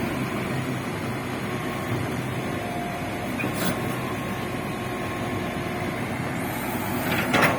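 Volvo wheel excavator running steadily while it is worked through its motions after greasing, with a faint steady whine over the engine noise and a few short knocks near the end.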